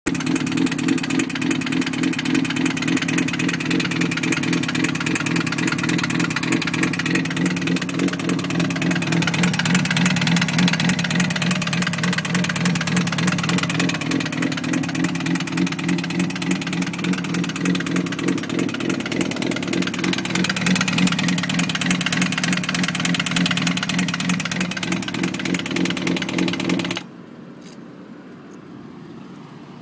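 2005 Honda CBR600RR's inline-four engine running with an awful, dense mechanical clatter, the damage from being ridden with no oil. It stops suddenly near the end.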